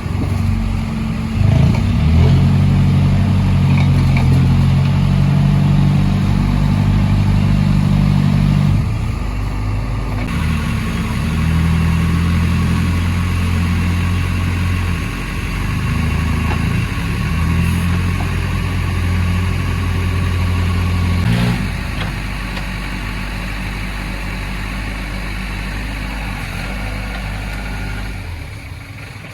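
Heavy diesel engine of a backhoe working under load, held at high revs. It dips briefly about 9 seconds in, climbs again, and drops back to a lower, steady speed about 21 seconds in.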